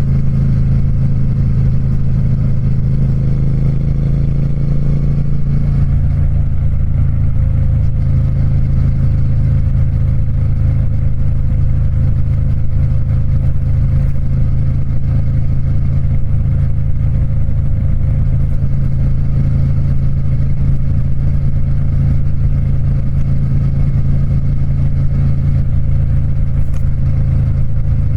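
Triumph Speed Twin motorcycle's parallel-twin engine running steadily through its exhaust. The pitch shifts over the first several seconds and then holds at an even speed.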